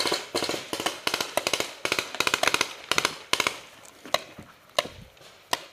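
Paintball markers firing in rapid volleys, fast sharp cracks several per second, thinning to a few single shots after about three and a half seconds.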